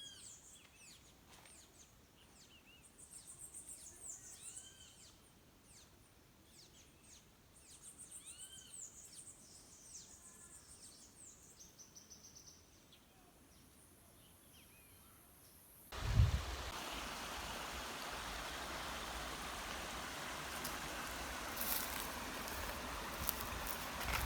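Songbirds chirping repeatedly in quiet countryside. About two-thirds of the way through, the sound cuts abruptly to a steady, much louder rush of falling water from a waterfall.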